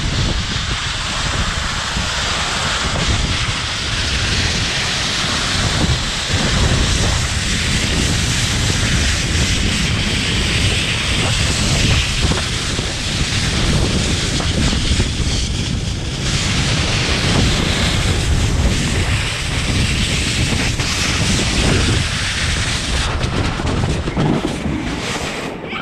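Wind buffeting the microphone over a steady rushing rumble as a rider slides fast down the run after a hard shove, easing off slightly near the end.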